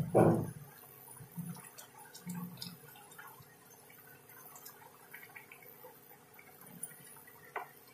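Water boiling gently around pieces of snake gourd in a pan: faint bubbling with small scattered ticks. A brief louder noise comes in the first half second.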